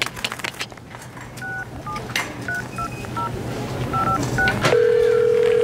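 Phone keypad tones as a number is dialed: a quick string of short two-note beeps. Near the end the call's ringback tone starts, a steady ring that shows the call is going through.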